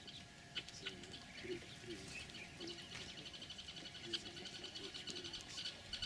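Faint chirping of sociable weavers at their colony nest: short high chirps that turn into a quick, busy chatter from about halfway through, with a few soft low wavering notes beneath.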